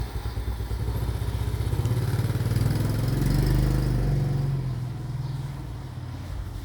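An engine running with a rapid low pulsing. It swells in pitch and level through the middle and then eases off toward the end.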